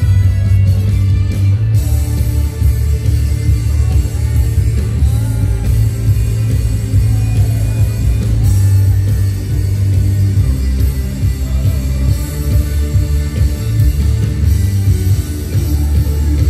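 Electric guitar playing a rock-style melody over a loud backing track with bass and drums, the guitar bending and sliding between notes.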